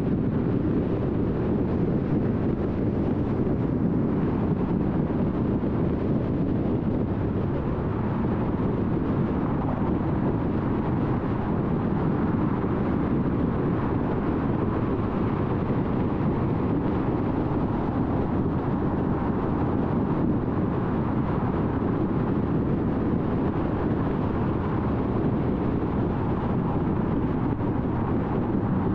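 Car driving at freeway speed: a steady low rumble of tyres on the road.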